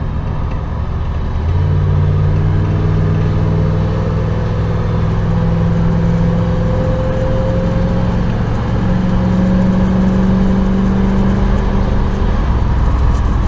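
1994 Chevy Silverado's 5.7-litre (350) V8 pulling the truck down the road. The engine note steps up about a second and a half in and climbs slowly. Near the end it drops as the gas is let off and the truck decelerates.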